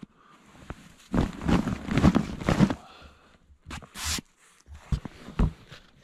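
Hand brush sweeping fresh snow off a tarp in a run of quick swishing strokes, with a few more strokes about four and five and a half seconds in.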